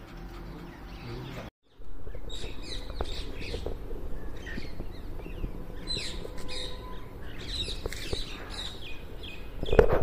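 A flock of birds calling: many short, high chirps overlapping, starting about two seconds in after a brief break, with a louder low burst of noise right at the end.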